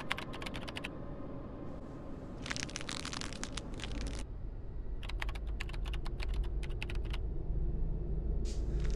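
Typing on a computer keyboard in several short bursts of rapid key clicks, over a low rumbling drone that swells louder from about halfway through.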